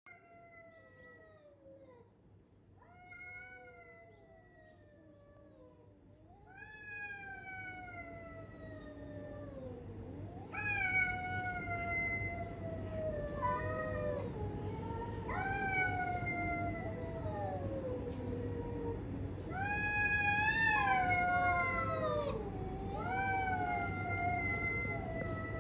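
Two tabby cats yowling at each other in a standoff: long, drawn-out calls, one after another, each sliding down in pitch, sometimes overlapping, and growing louder as it goes. It is the threat yowling of rival cats squaring up before a fight.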